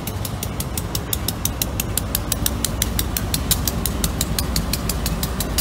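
GE B36-7 diesel locomotive with a loaded side dump car rolling slowly past: a steady low engine rumble with a rapid, even clicking about eight times a second.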